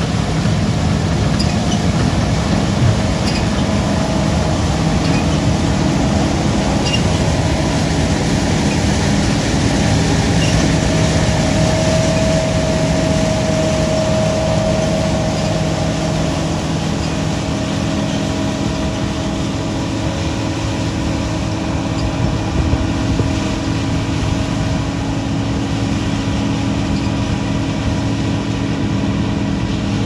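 Large farm machine running steadily through a field harvest: a continuous engine hum and mechanical rumble, with a faint whine coming and going around the middle.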